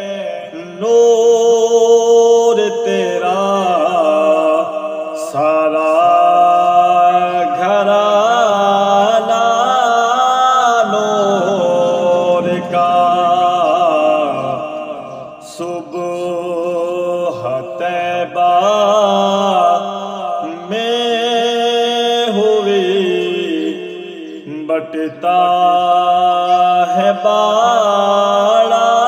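A man singing an Urdu naat without instruments, drawing out long ornamented melodic phrases with short breaks between them, over a steady low hum.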